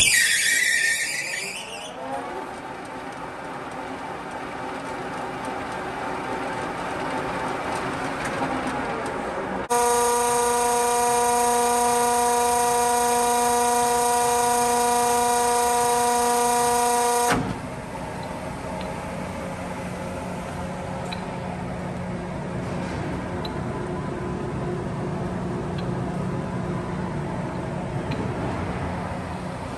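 LeBlond engine lathe running under power, its geared headstock giving a pitched whine. The pitch slides away in the first couple of seconds. A steadier, louder whine starts abruptly about ten seconds in and cuts off about seven seconds later, with a rougher running noise on either side.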